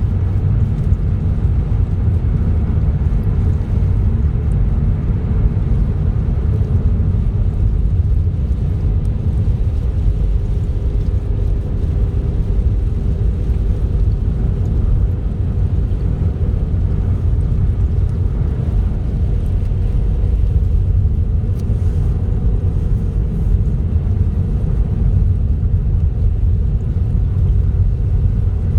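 Car driving along a highway: a steady low rumble of engine and tyre road noise.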